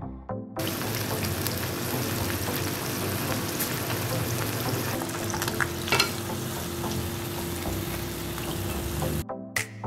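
Panko-breaded corn dog deep-frying in hot oil: a steady, dense sizzle and bubbling, with a sharp pop about six seconds in. The sizzle starts about half a second in and cuts off near the end.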